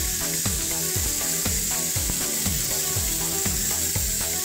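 Background music with a steady beat of deep bass drum hits, about two a second, each dropping in pitch, under held synth tones.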